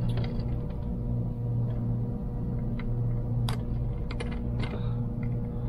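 Scattered light clicks and taps of plastic parts being handled and pried during the disassembly of a cheap hair dryer-brush, the clearest about three and a half to four and a half seconds in, over a steady low hum.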